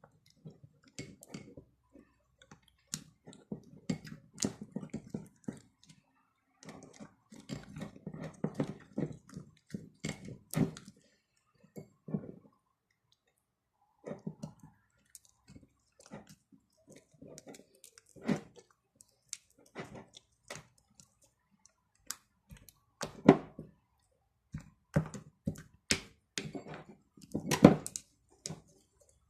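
Slime being squeezed and worked by hand, making irregular squelches and small clicking pops with short pauses between.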